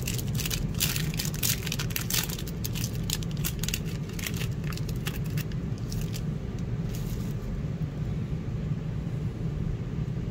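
Foil trading-card pack wrapper crinkling and tearing as it is ripped open. The crackles are dense at first and die away about seven seconds in, over a steady low hum.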